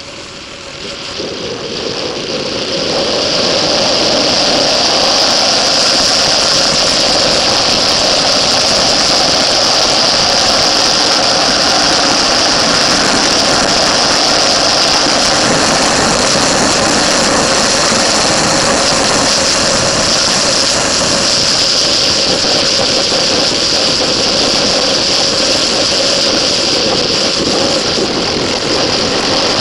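Motorcycle engine running hard with rushing wind noise, heard from on board the moving bike; it grows louder over the first few seconds as the bike picks up speed, then holds steady.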